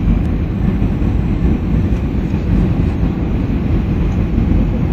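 Airbus A320 cabin noise on final approach: the steady sound of the jet engines and rushing air, heard from a seat over the wing. It is loud and even throughout, and mostly deep.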